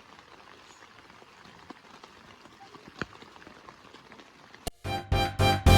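Faint steady rain patter with scattered drips. Near the end it gives way to background music with guitar and drums.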